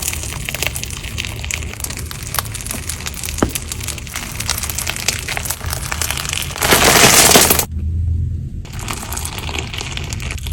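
Slime being squished and stretched by hand, making dense crackling and popping clicks. There is a louder, longer squish about seven seconds in, then a brief pause before the crackling picks up again.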